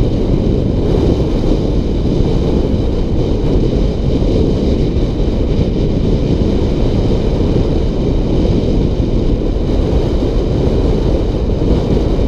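Wind rushing over the microphone during a fast downhill ride: a loud, steady low rumble that never lets up.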